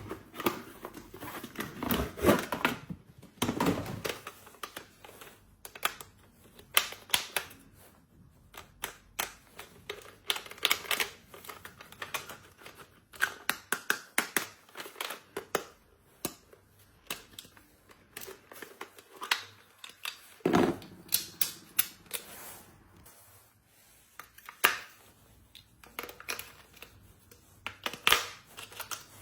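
Small plastic toys and packaging being handled and unboxed: irregular clicks, taps and rustling, in uneven clusters with short pauses.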